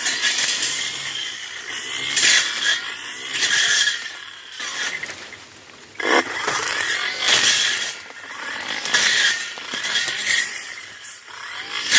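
Tanzu brush cutter's small engine running and revving up and down as the spinning blade cuts through dense brush and weeds. The level surges and falls every second or two, eases off about five seconds in, and revs back up suddenly a second later.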